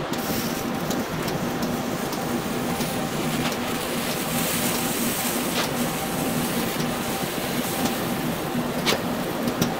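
Battery charger switched to 40 amps into a dead short through a thin wire, giving a steady hum over a hiss while the wire heats red hot, with a few faint clicks.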